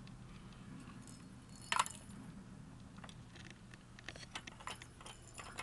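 Small jingle bell being batted around by a kitten, jingling: one loud ring about two seconds in, then a run of lighter clinks near the end.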